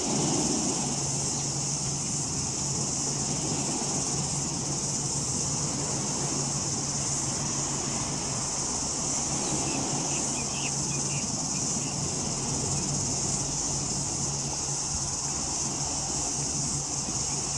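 Steady outdoor ambience: a constant high-pitched buzz over a low, even hum, with a few faint chirps about ten seconds in.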